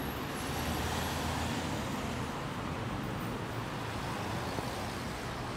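Road traffic on a city street: a steady wash of car engine and tyre noise with a low hum underneath.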